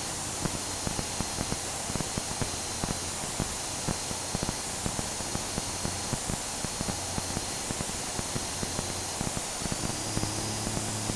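Faint steady cabin noise of a light airplane in flight, a low hum under an even hiss with frequent small clicks. The low hum shifts in pitch near the end.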